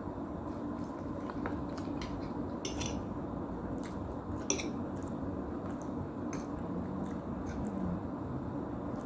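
A person eating noodles close to the microphone: wet chewing and mouth clicks with occasional clinks of a utensil on a bowl or plate, coming at irregular moments, the sharpest about halfway through, over a steady low hum.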